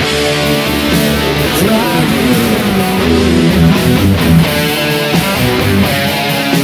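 Electric guitar playing a hard-rock part with a full rock band track, with notes bent or slid up and down near the middle.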